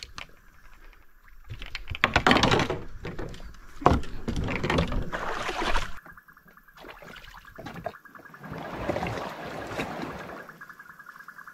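Paddle strokes and water sloshing around a kayak, in irregular bursts of splashing.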